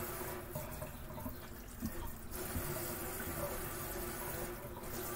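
Water running from a kitchen faucet into a stainless steel sink as hands are rinsed under the stream, a steady splashing hiss.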